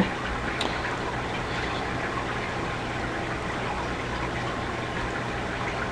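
Steady background hiss with a low, even hum, and one faint click about half a second in.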